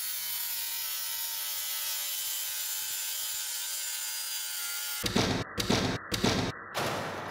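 Makita brushless cordless circular saw running steadily as it cuts through a sheet board along a guide track, a high whine over the noise of the blade in the wood. About five seconds in it gives way to four loud hits in quick succession.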